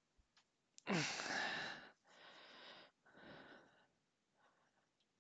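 A man sighing heavily. One long breathy exhale about a second in opens with a short falling voiced note, and is followed by two softer breaths and a faint one near the end.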